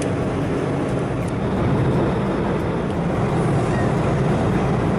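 Steady rush of an Embraer 190 jet's engines and airflow heard from inside the passenger cabin, growing slightly louder about a second and a half in.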